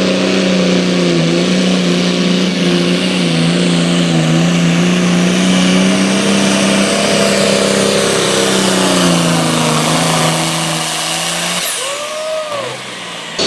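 International Harvester turbocharged diesel pulling tractor running at full throttle under load as it drags a weight-transfer sled, a loud steady engine note that dips briefly a couple of times and sags lower late on. About three-quarters of the way through the engine note cuts off as the throttle comes off at the end of the pull.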